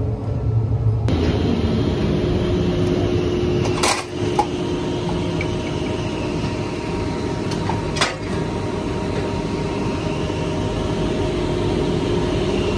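Drilling rig floor machinery running with a steady drone carrying several held tones. Two sharp knocks stand out, about four seconds in and again about eight seconds in.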